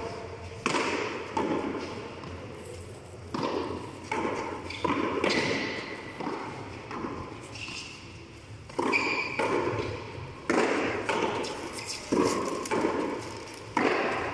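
Tennis ball being struck by hand and rebounding off the walls and floor of an enclosed frontón court: a series of sharp slaps and thuds at irregular spacing, a second or a few seconds apart, each ringing on in the hall's echo.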